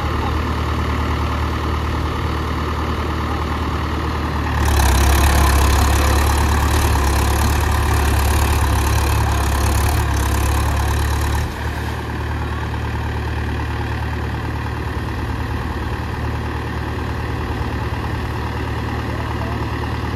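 Mahindra 575 DI tractor's four-cylinder diesel engine running steadily. It turns suddenly louder about a quarter of the way in, holds for several seconds, then drops back abruptly.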